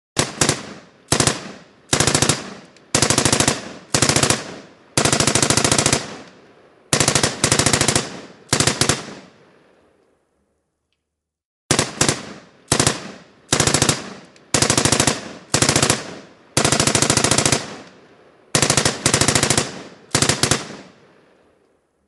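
M1919 Browning machine gun firing short bursts of automatic fire, most under a second and one longer, each trailing off in an echo. After about nine bursts there is a pause of a second and a half, then the same string of bursts repeats.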